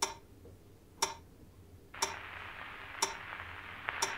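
A clock ticking, one sharp tick a second. A soft steady hiss comes in about halfway through.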